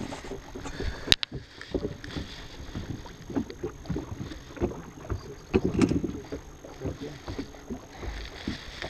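Scattered knocks, taps and rustling as a smallmouth bass is handled on a boat's carpeted deck and laid on a measuring board, with one sharp click about a second in and a few soft thumps.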